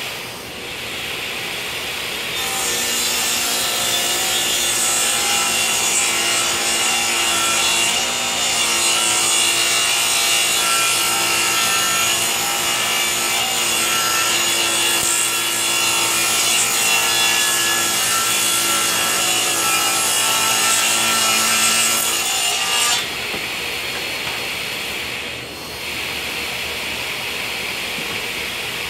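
Table saw ripping a long wooden board lengthwise. The blade cuts under load for about twenty seconds, starting a couple of seconds in, then the cut ends and the saw keeps running free.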